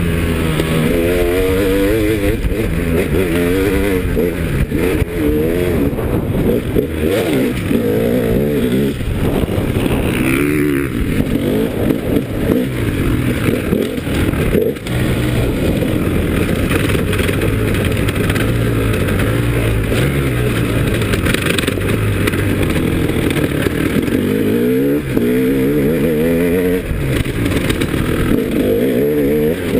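KTM 300 EXC two-stroke single-cylinder dirt bike engine being ridden hard, revving up and dropping off again and again as the rider works the throttle and gears. It holds a steadier pitch for several seconds in the middle.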